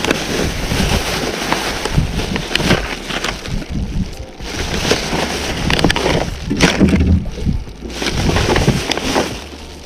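Wind buffeting the microphone and water sloshing against an anchored small fishing boat, with scattered short knocks and rustles of handling.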